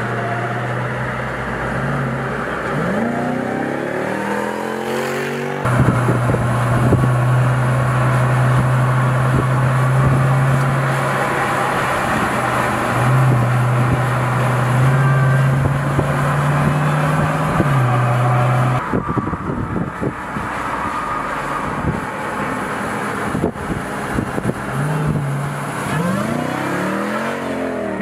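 Jeep Grand Cherokee Trackhawk's supercharged 6.2-litre Hemi V8 running hard at speed, mostly a steady engine note with rising sweeps in pitch a few seconds in and again near the end. The sound changes abruptly about six seconds in and again after about nineteen seconds.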